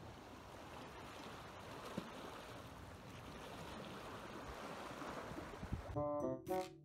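Steady outdoor seashore ambience of wind and gently lapping sea water. About six seconds in, music with clear notes starts suddenly.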